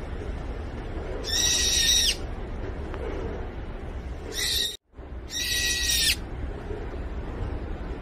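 Bird calling: three flat, steady whistled calls, each under a second long, about one and a half, four and a half and five and a half seconds in. The middle call is cut short by a brief dropout to silence. A steady low rumble runs underneath.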